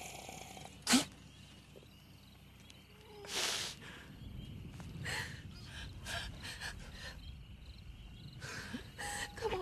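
A person's sharp, breathy intakes of breath in distress: a short sharp one about a second in and a longer one about three and a half seconds in, then weaker breaths over a low steady rumble.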